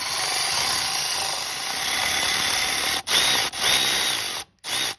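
Power drill spinning a 10 mm socket to back out the bolt holding the cam actuator. It runs steadily for about three seconds, then in three short bursts with a faint motor whine, and cuts off sharply at the end.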